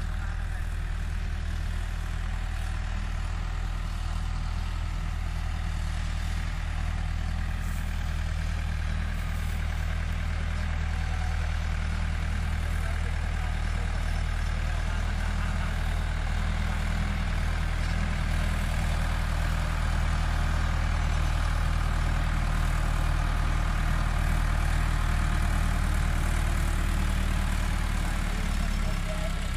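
Diesel engines of a tractor and a backhoe loader running side by side, giving a steady low drone with no revving that swells slightly in the second half.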